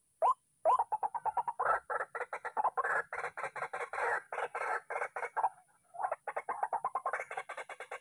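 White-breasted waterhen calling: a single note, then a fast, harsh run of croaking notes that stops briefly a little past halfway and then starts again.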